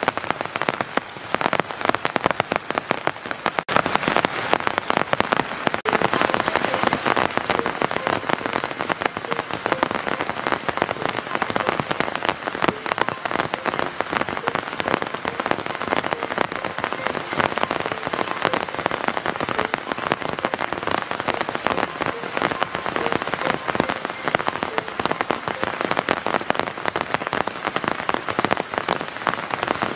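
Heavy tropical rain pouring steadily, a dense patter of drops falling on forest foliage.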